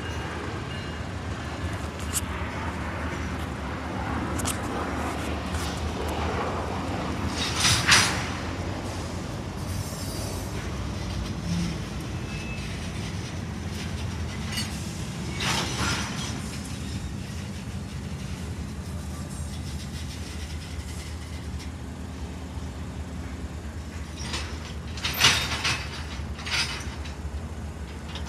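Freight train of covered hopper cars rolling slowly, a steady low rumble. Short sharp metal-on-metal noises stand out about eight seconds in, again about fifteen seconds in, and in a cluster of three near the end.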